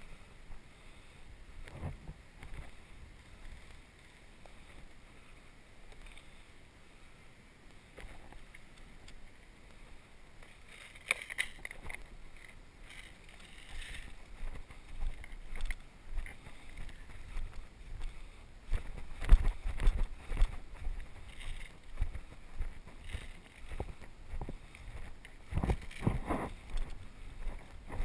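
Footsteps through leafy forest undergrowth, with plants brushing and rustling and low thumps of wind or handling on the microphone. Sparse at first, busier from about a third of the way in.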